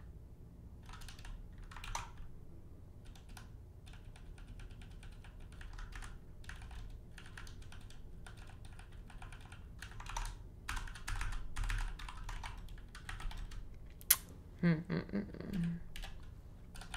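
Typing on a computer keyboard: irregular runs of key clicks, with one sharp, louder click about fourteen seconds in, followed by a brief hum.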